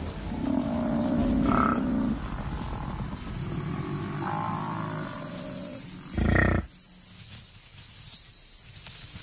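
Lions growling and African buffalo bellowing as the lions attack a buffalo calf, with a held low call in the first two seconds and a loud short call about six seconds in. A steady high insect trill runs underneath.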